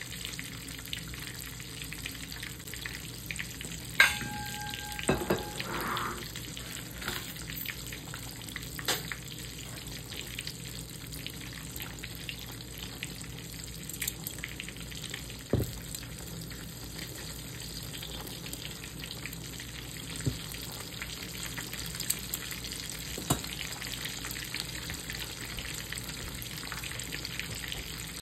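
Fried chicken sizzling in hot oil, a steady crackling hiss with scattered pops. About four seconds in there is a sharp click and a brief steady tone lasting about a second, and a few single knocks come later.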